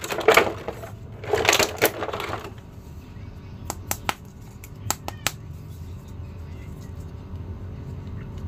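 Clear plastic blister tray crinkling and rustling under the hands for the first couple of seconds, then a handful of sharp, separate clicks of a hard plastic action figure being handled.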